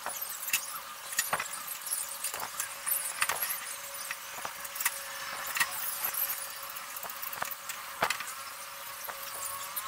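Irregular clicks and light knocks from a cordless drill and plywood being handled while screws are driven into a plywood stand, over a faint steady hum.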